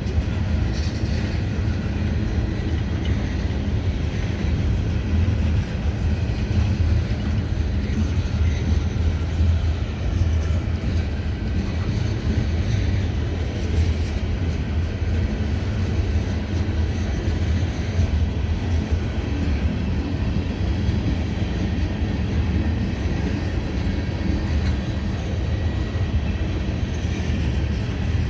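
Freight train cars rolling slowly past, a steady low rumble of wheels on rail.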